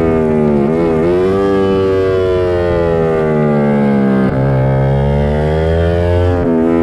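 Racing motorcycle engine heard from an onboard camera: the note falls as the bike brakes for a corner, with quick throttle blips about a second in. It then rises and falls through the turn, with a gearchange a little over four seconds in and another near the end as it drives out.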